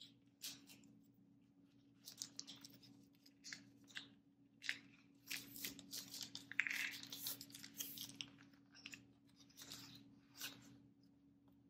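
Foil wrapper being peeled and crinkled off a block of softened cream cheese by hand: faint, irregular crackling rustles, busiest in the middle.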